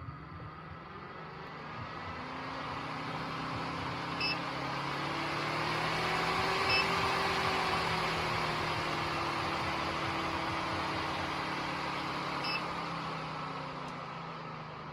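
Electric nail dust collector fan running: a steady whirring hum with airy hiss that swells over several seconds and then slowly eases off. Three faint short beeps sound in the middle.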